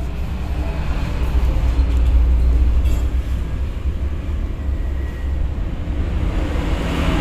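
Busy outdoor market ambience dominated by a steady low rumble of vehicle engines, swelling near the end as a vehicle draws close.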